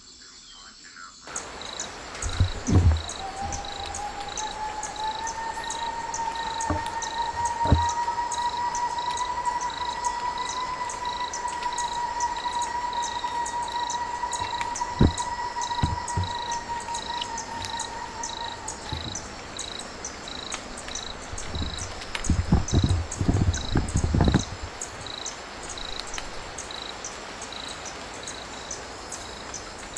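Insect chirping in an even rhythm, a short high chirp repeated about one and a half times a second, starting suddenly about a second in. A long steady tone sounds under it through the first two-thirds, and there are a few low thumps.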